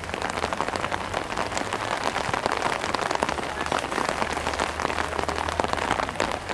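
Rain patter: a dense, even crackle of drops.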